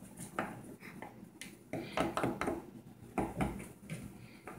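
Small plastic toy figures clicking and clattering on a wooden tabletop as they are picked out of a pile and set down one by one, in short irregular knocks.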